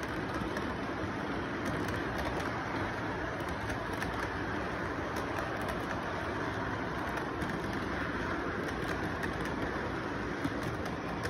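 Lionel model train rolling past close by on its track: a steady rumble of wheels and motor with light, rapid clicking throughout.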